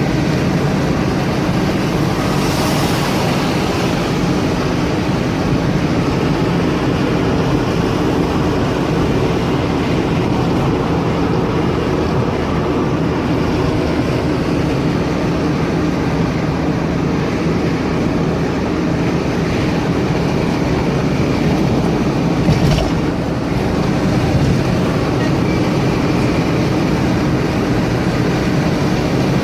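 Steady vehicle engine and road noise with a low hum, with a brief sharp knock about three-quarters of the way through.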